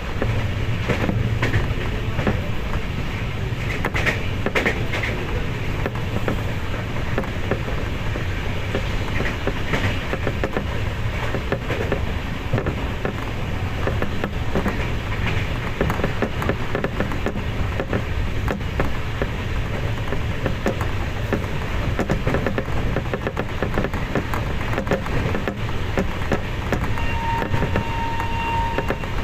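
A train running along the track: a steady rumble with scattered faint clicks. Near the end a steady high tone joins in.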